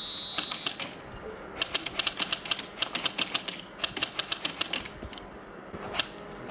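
A loud, high, steady whistle-like tone lasting about the first second, then a fast, uneven run of sharp clicks for about three seconds, with one more click near the end.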